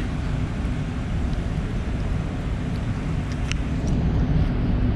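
Steady low outdoor rumble, with a faint click about three and a half seconds in.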